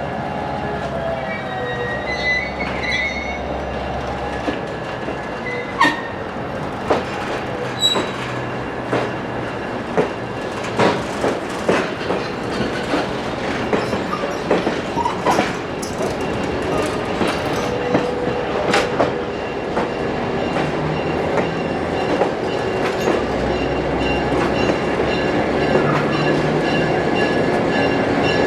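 Train hauled by an EMD GP9 diesel locomotive rolling past, its wheels clicking over rail joints about once a second, with brief wheel squeal. The rumble grows louder near the end.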